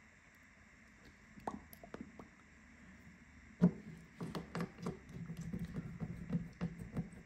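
Small clicks and taps of a screwdriver and screws on the plastic midframe of a Samsung Galaxy A23 5G being screwed back together. Faint at first, with a sharp click about halfway through, then a quick run of clicks.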